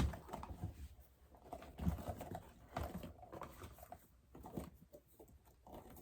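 Faint, scattered clicks, knocks and rustles of small fidget toys being handled and rummaged through by hand.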